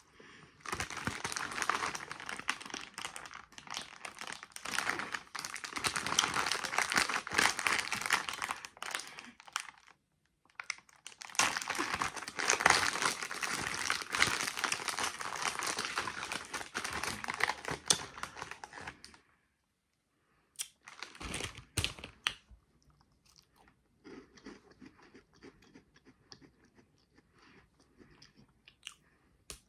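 Plastic snack wrapper on a Hershey's Cookies 'n' Creme Rounds package crinkling and tearing as it is handled and opened, in two long stretches with a short break between. Near the end, fainter crunching and chewing of one of the cookie rounds.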